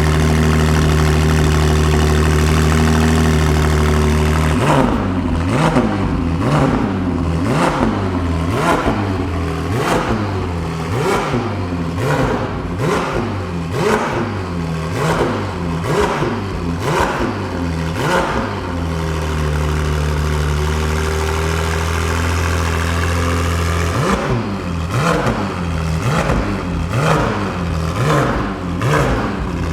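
Ferrari 296 GTS twin-turbo V6 through a full Capristo exhaust with catted downpipes, stationary: a steady idle, then a long series of sharp throttle blips about one a second, idling again, then another run of blips near the end.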